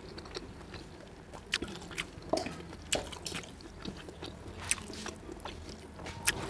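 A person eating with her fingers: wet lip smacks and chewing, with several short, sharp clicks at irregular intervals.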